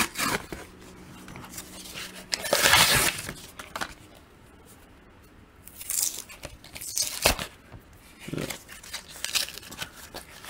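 Stiff clear plastic blister pack being forced open by hand, crackling and tearing in irregular bursts. The loudest tear comes about two and a half seconds in, and a sharp plastic snap follows about seven seconds in.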